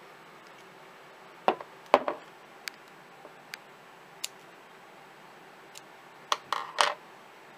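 Sharp clicks and knocks from scissors snipping yarn and a glass bottle being handled: two loud knocks about a second and a half to two seconds in, a few small ticks in the middle, and a cluster of clicks near the end.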